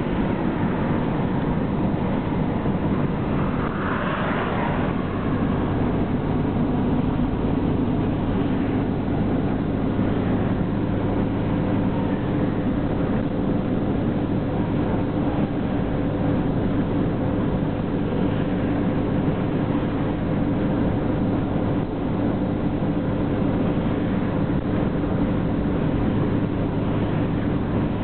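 Steady road and engine noise inside a car's cabin at freeway speed, about 65 mph: a constant rumble with a low hum and no break. About four seconds in there is a brief louder hiss.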